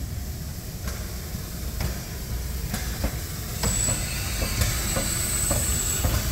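Narrow-gauge steam tank locomotive 99 7237-3 rolling slowly past with a low rumble and sharp clacks from the running gear and rail joints, the clacks coming quicker in the second half. A high steady hiss of steam sets in about halfway through.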